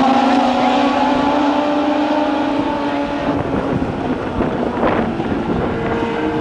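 Legends race cars' motorcycle engines running on the oval, a steady drone whose pitch slides slowly down. About three seconds in, the engine note fades into a rougher, noisier sound.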